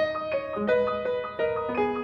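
Solo piano playing: a melody of struck notes, about four a second, over held lower notes.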